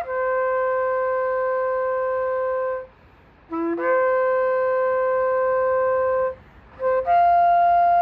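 Shofar blown in three long, steady blasts with short breaks between them. The second blast starts on a brief low note and jumps up, and the third is held at a higher pitch than the first two.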